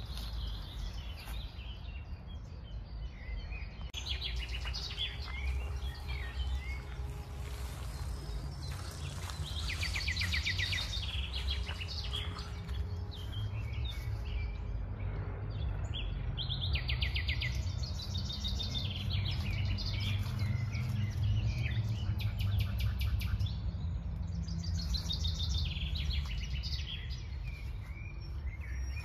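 Songbirds singing in trees overhead: several fast, trilling song phrases every few seconds, over a steady low rumble of distant city noise.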